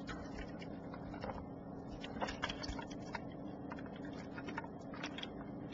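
Faint, scattered light clicks and taps of fingers handling a plastic HO scale model steam locomotive and its tender, over a low steady hum.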